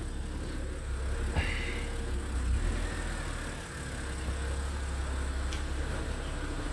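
BMW 328xi's inline-six idling, a steady low hum, with a short click and brief squeak about a second and a half in and a small tick later on. The engine is throwing a cylinder 2 misfire code and lean codes for both banks, and the owner says it sounds really odd.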